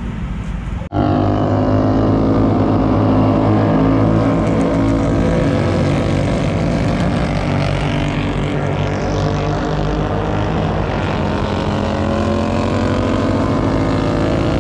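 Several Royal Enfield 650cc parallel-twin race motorcycles running hard on the track, their engines overlapping in a loud, continuous note whose pitch shifts as they accelerate and shift. It starts abruptly about a second in.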